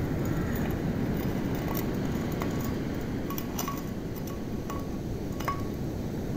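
Light chiming clinks scattered over a steady low rush of noise.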